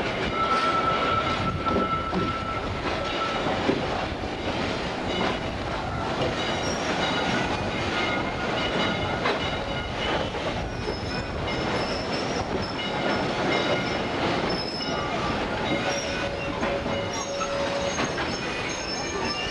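Excursion train moving, heard from an open passenger car: a steady rumble of wheels on rail with thin high-pitched wheel squeals coming and going, one in the first few seconds and higher ones through the second half.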